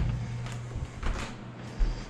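Hinged pantry cabinet doors pushed shut by hand with a thump at the start, followed by a lighter knock about a second in and a low thud near the end, over a steady low hum.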